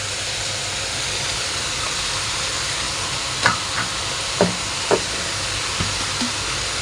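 Stir-fry of garlic, sausage and vegetables sizzling in a hot pan, a steady hiss as the sauces go in. A few short sharp knocks come in the middle, from something striking the pan.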